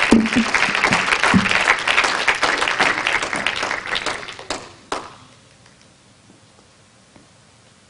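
Audience applauding, dense clapping that thins out and stops about five seconds in, with a few last separate claps.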